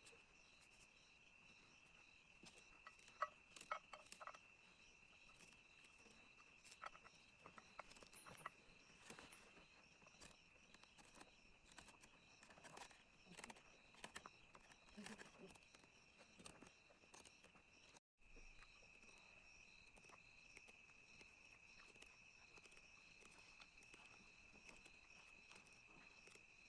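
Crickets trilling steadily in a high, constant tone, with scattered faint clicks and taps in the first part and a brief cut to silence about two-thirds of the way through.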